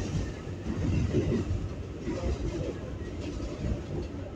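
R142A New York City subway car running between stations, heard from inside the car: a steady low rumble that swells and eases a little.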